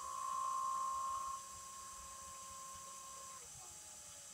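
Servo motor driven by an MTS AC-10-S servo amplifier, whining at a steady pitch as it runs, louder for the first second and a half. About three and a half seconds in the whine falls in pitch and fades as the motor slows down.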